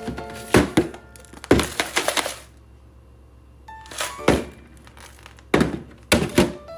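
A series of knocks and clunks of containers and food items being handled and set down in a refrigerator, with a quieter gap in the middle, over background music.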